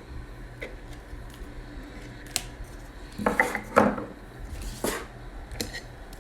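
Trading cards and their packaging being handled on a table: scattered clicks and taps, with a busier stretch of handling noise about three to four seconds in.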